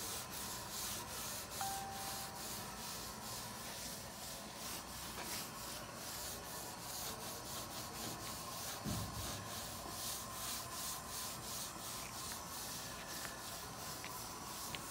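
Abrasive scouring side of a kitchen sponge scrubbed back and forth over weathered wooden table boards wet with a bleach and water solution: a steady rhythm of scratchy scrubbing strokes, a few each second.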